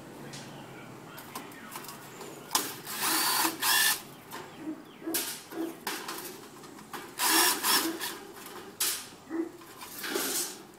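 Cordless drill-driver backing sheet metal screws out of tin soup cans, running in several short bursts of under a second each.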